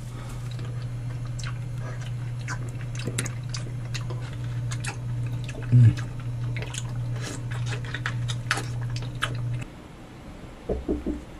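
Wet chewing and smacking of juicy fruit being bitten and eaten: scattered small clicks over a steady low hum, with a short thump about six seconds in. The hum cuts off near the end.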